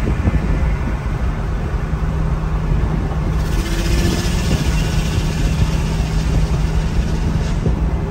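Maserati GranTurismo's V8 cruising steadily at highway speed, heard from inside the cabin as a low, even drone mixed with road noise. A louder rushing hiss sets in about three seconds in, as another car passes close alongside.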